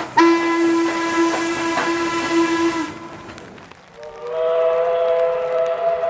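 Steam whistle of No. 1309, a 2-6-6-2 Mallet steam locomotive, blowing a long blast that breaks off briefly near the start and ends just under three seconds in with a slight fall in pitch. After a short lull a different steam whistle sounds a steady chord from about four seconds in.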